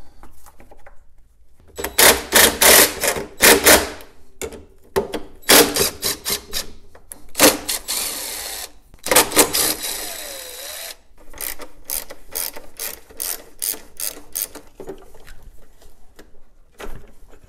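DeWalt cordless driver backing screws out of a mower engine's plastic air cleaner housing. It runs in several short bursts of rapid clicking and whirring, then gives a slower run of evenly spaced clicks near the end.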